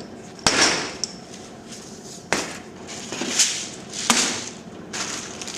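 Three sharp knocks, a little under two seconds apart, each followed by a short rattling hiss that fades, with a small click after the first.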